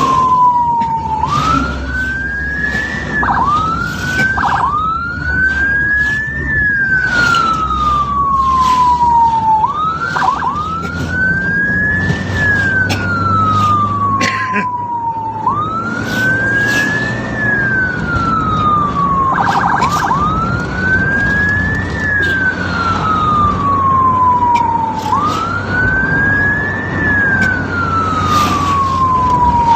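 Ambulance siren wailing: each cycle rises quickly and then falls slowly, repeating about every five seconds, with a few short quick dips between cycles. Vehicle engine and road rumble runs underneath.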